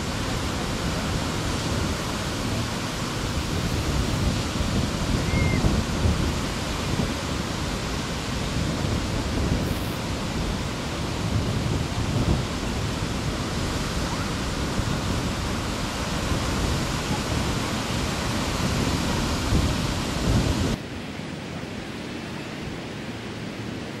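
Surf breaking on a beach, heard as a dense rumbling rush with wind buffeting the camcorder microphone. Near the end it drops suddenly to a quieter, steadier hiss.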